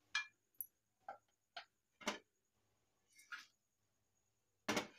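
Faint, sparse clicks and taps of a kadai and utensils as dry-roasted whole spices are emptied onto a plate: five light ticks about half a second apart, another a second later, then a louder knock near the end.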